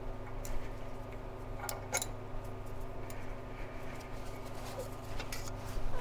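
A few scattered light clicks and taps of a spark plug wrench being fitted and worked on a Chevy 350 V8's spark plug, over a steady low hum.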